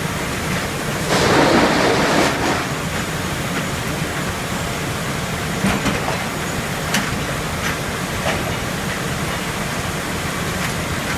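Helle circle sawmill running with a steady mechanical rumble and rattle. About a second in a louder rush swells for a second or so, and a few sharp knocks follow later.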